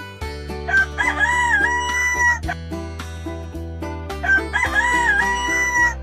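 Rooster crowing twice, each a long cock-a-doodle-doo of about two seconds, over steady background music.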